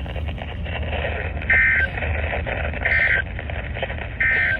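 NOAA Weather Radio's SAME end-of-message signal: three short bursts of digital data tones, each about a third of a second long and about a second apart, marking the end of the weekly test broadcast. Steady radio static and a low hum from the receiver lie under it.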